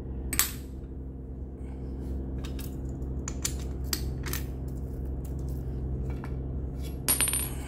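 Electric hydraulic pump for a crimping tool running with a steady low hum, with scattered light metallic clicks and clinks.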